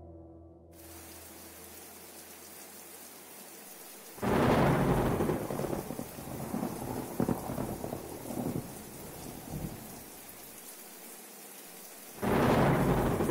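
Steady rain with two loud thunderclaps, about four seconds in and again near the end, each rumbling and crackling away over several seconds.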